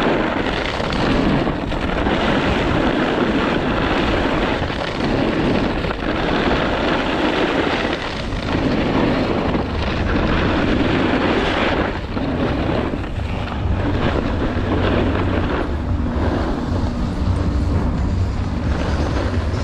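Snowboard sliding and scraping over firm, icy groomed snow, with wind rushing over the microphone; the rushing eases in the last few seconds as the rider slows.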